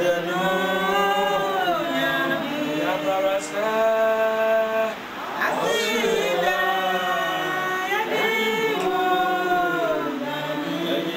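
Voices singing together in long held notes that glide from one pitch to the next.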